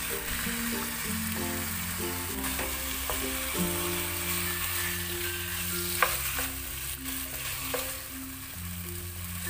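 Chicken pieces sizzling in hot spice paste in a ceramic-coated pan while a wooden spatula stirs and turns them, with a few sharp knocks of the spatula against the pan, the loudest about six seconds in.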